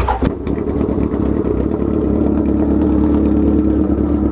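Kawasaki Z1000 inline-four engine idling steadily through Danmoto XG-1 slip-on mufflers. The exhaust note is loud.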